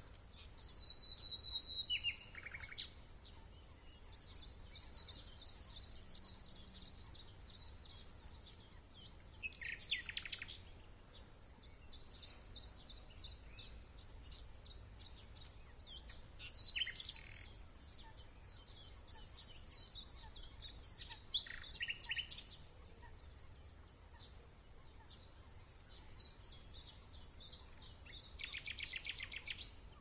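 Songbirds singing: a loud song phrase of one to two seconds repeats about every six seconds over continual faint, high chirping from other birds.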